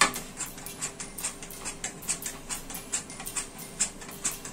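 Raw potato rubbed back and forth over the steel grater blade of a plastic chips cutter, shredding it into fine strands: a steady run of short rasping strokes, about four a second.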